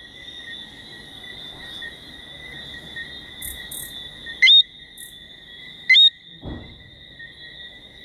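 Night chorus of small whistling frogs (Eleutherodactylus), a steady high whistling. Just past the middle a nearby frog gives two loud rising whistles about a second and a half apart, followed shortly by a dull low thump.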